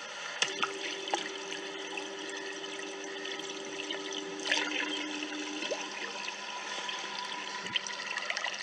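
Water churning and trickling around a ceiling fan run in a water tank, with a steady two-note electric hum for the first several seconds and a few small clicks.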